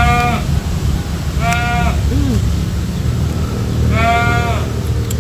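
A farm animal bleating three times, each call short and level in pitch, near the start, about one and a half seconds in, and about four seconds in, over a steady low hum.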